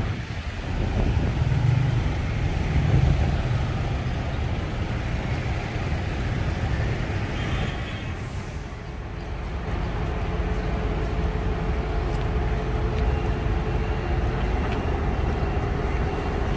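Steady city street traffic noise, a continuous low rumble of passing vehicles, dipping briefly about eight seconds in.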